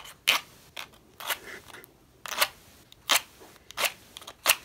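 A match struck repeatedly against a striking surface: about six short scratchy scrapes, each well under a second, with gaps between them.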